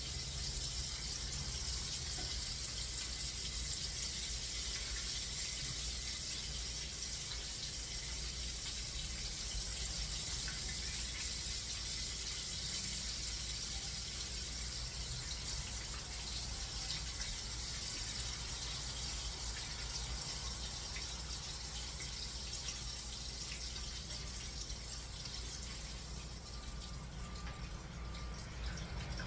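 Breaded chicken nuggets frying in hot oil, a steady sizzle.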